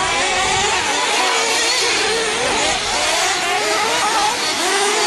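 Several 1/8-scale nitro RC truggy engines racing, a high-pitched buzz that keeps rising and falling as the trucks accelerate and back off.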